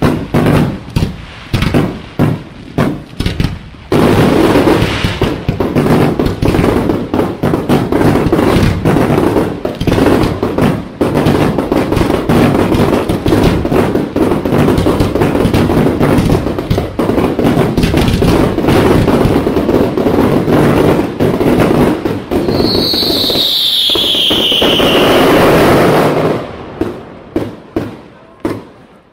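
Aerial fireworks: a few separate bangs, then from about four seconds in a dense barrage of rapid, overlapping bursts and crackling. A falling whistle sounds about three quarters of the way through, and the bangs then thin out to scattered single reports near the end.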